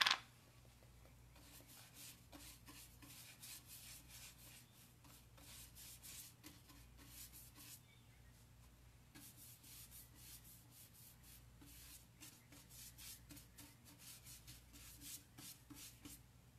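Faint, quick scratchy strokes of a bristle wax brush working dark wax into the painted wood of a furniture door panel, coming in runs with a short pause about eight seconds in.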